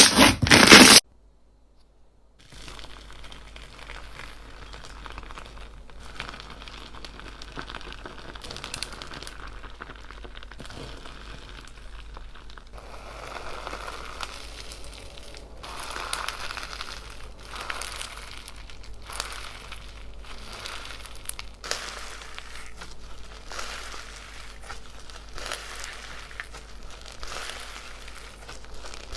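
Crunchy slime being squeezed and worked by hand: a loud crunching for about the first second, a short silence, then quieter, continuous crinkling and crackling with many small pops.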